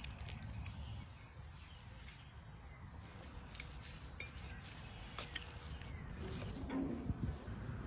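A metal fork stirring diced tomato, onion and cilantro in a glass bowl: several sharp clicks of the fork against the glass, with a few short high squeaks, over a steady low hum.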